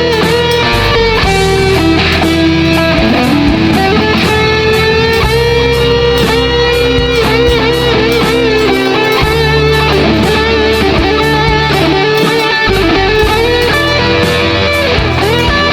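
Electric guitar playing a blues-style lead line with string bends and vibrato over a backing track of bass and drums.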